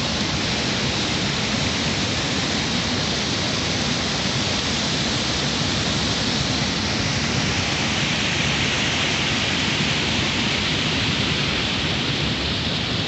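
Small monsoon waterfall rushing steadily over rocks into a shallow stream.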